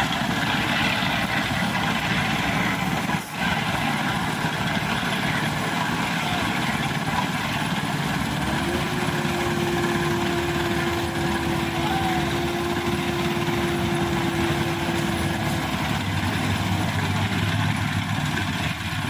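An engine running steadily at idle, with a brief break about three seconds in. A steady whine joins it from about eight to sixteen seconds.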